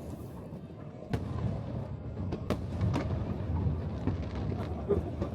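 Aerial fireworks going off: several sharp bangs, about a second in, at two and a half seconds and again at three seconds, over a steady low din of further bursts.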